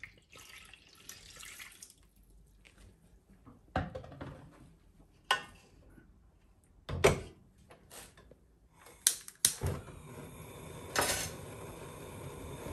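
Milk pouring into a pot of raw chicken leg pieces for about the first two seconds, then several knocks as the metal pot is handled and set on a gas stove. Near the end, two sharp clicks from a handheld gas lighter, and the burner lights with a steady gas-flame hiss.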